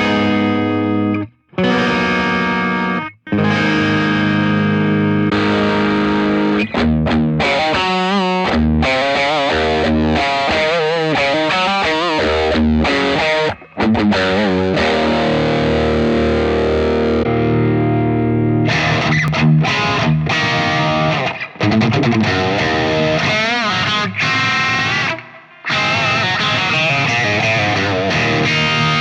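Electric guitar played through an IK Multimedia TONEX One amp-modelling pedal with a distorted amp tone: chords and ringing notes, some of them bent or wavering in pitch. The playing stops briefly a few times between phrases.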